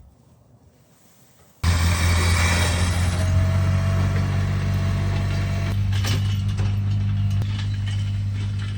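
A vehicle engine running steadily at a low, even pitch. It starts abruptly and loudly after about a second and a half of quiet.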